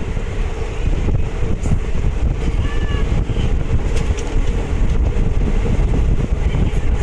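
An ICF passenger train running along the track: a steady rumble of wheels on rails with wind buffeting the microphone at the open door. A brief high-pitched tone sounds about three seconds in.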